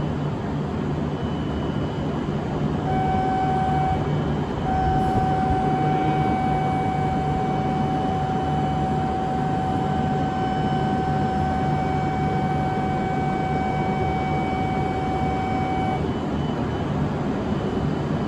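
E7/W7-series Hokuriku Shinkansen train standing at the platform with a steady hum, while a steady electronic departure tone sounds for about thirteen seconds, with a short break soon after it starts, as the signal before the doors close.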